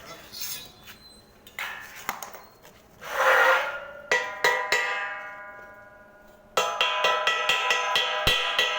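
Scattered clicks and knocks and a short noisy burst, then a ringing struck tone about four seconds in that slowly fades. Percussive background music with a quick, even beat starts a little past halfway and runs on.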